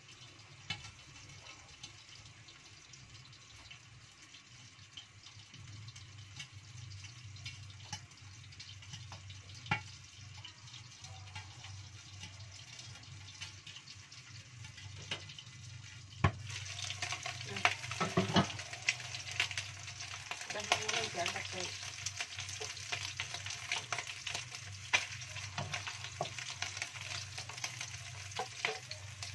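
Stingray pieces deep-frying in oil in a wok, sizzling with scattered pops, muffled under a metal lid at first. About halfway through there is a sharp clack, and the sizzle and spattering become much louder and brighter as the pan is uncovered.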